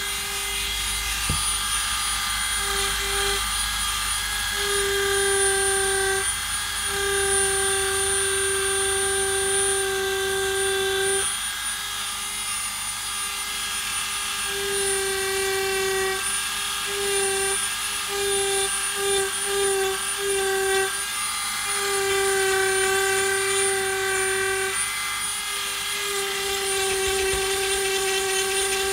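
Dremel rotary tool running with a steady high-speed whine as an engraving bit cuts into weathered wood; a lower tone in the whine keeps cutting out and coming back every second or few as the bit is worked along the letters.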